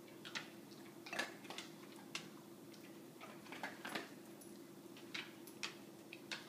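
A coonhound's toenails clicking on a hard floor as it walks, uneven clicks about two a second, over a steady low hum.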